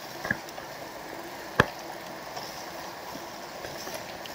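Steady wind and tyre noise of a bicycle rolling along a paved road, heard from a camera on the handlebars, with two sharp clicks, the louder one about a second and a half in.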